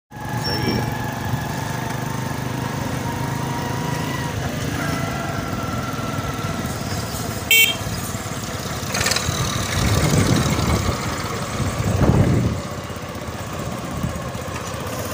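A motorcycle engine runs on the move, swelling in level about ten and twelve seconds in. About seven and a half seconds in there is one short, loud, high beep.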